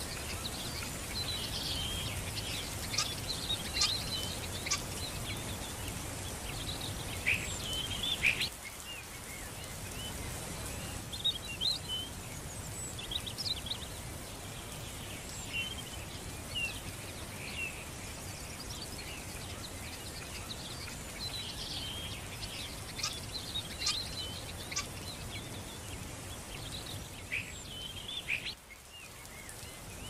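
Small birds chirping and calling over a steady outdoor hiss. The background drops out briefly twice, at about a third of the way in and near the end.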